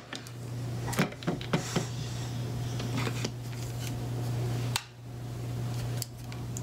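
A steady low hum with a few light clicks and taps and faint rustling from handling a makeup brush during eyeshadow application.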